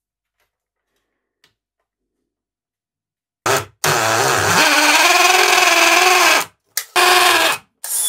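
Cordless drill boring through a plastic alarm panel back plate into the wall. After about three seconds of silence comes a short burst, then a steady run of about three seconds with a motor whine, then two shorter bursts near the end.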